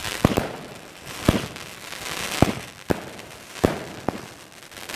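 Fireworks going off: about six sharp bangs roughly a second apart, with crackling between them.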